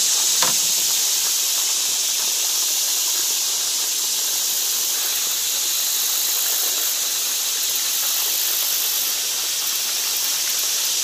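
Cicadas singing in the summer trees, a steady high-pitched chorus that holds without a break, with one light click just after the start.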